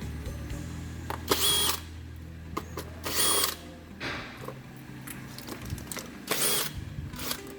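A power drill or driver run in three short bursts, each spinning up to a steady whine, as used for removing fasteners during engine repair work.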